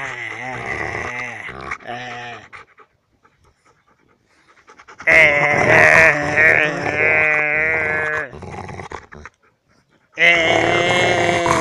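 Belgian Malinois howling and moaning in long, wavering calls, in three stretches with short pauses between: one fading out about two and a half seconds in, a longer one of about four seconds in the middle, and another starting near the end.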